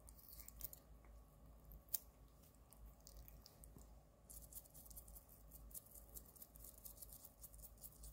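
Faint scratchy scraping of a cat toothbrush's bristles on a cat's teeth, in a quick run of short strokes in the second half, with one sharp click about two seconds in.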